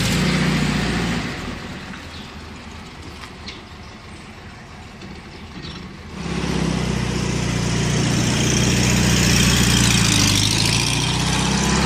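Volkswagen SP2's air-cooled flat-four engine running: loud at first, fainter for a few seconds, then loud again from about six seconds in and holding steady as the car drives off.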